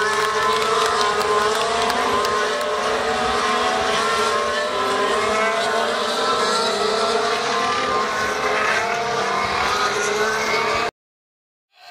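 Several 2015 Formula One cars' 1.6-litre turbocharged V6 engines running together as they go by, their pitches shifting slowly over one another. The sound cuts out abruptly for under a second near the end.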